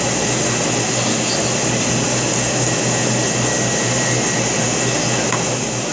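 Steady whirring hum of room air conditioning, an even rushing noise with a constant low hum underneath.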